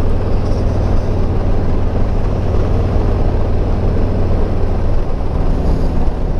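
Harley-Davidson Street Glide Special's V-twin engine running steadily as the bike cruises along a road, mixed with the rush of riding wind.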